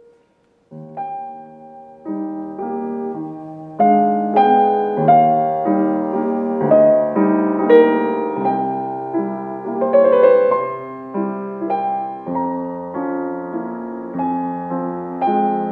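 Fazioli F183 grand piano being played: a flowing passage of melody over chords that starts softly about a second in and grows fuller and louder around four seconds in.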